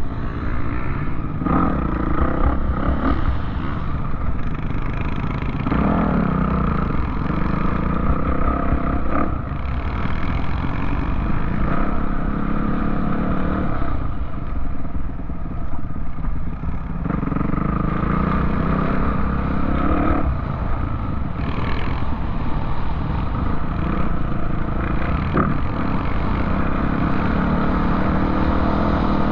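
Off-road vehicle engine running under load and revving up and down repeatedly, with rattling and clatter from the vehicle over rough ground.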